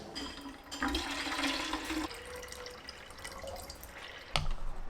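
Water rushing, with a faint steady tone under it, then a single sharp knock near the end.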